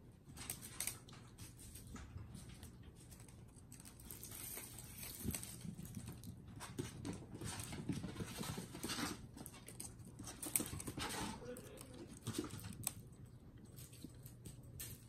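Kittens scampering and pouncing on carpet while a feather wand toy swishes: irregular soft pattering, scuffs and rustles, busiest in the middle.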